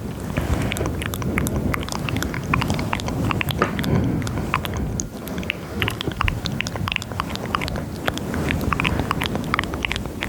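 Close-miked ASMR mouth sounds, many quick wet clicks and smacks, over a steady low rubbing of hands on a microphone set to maximum sensitivity, as in a simulated head massage.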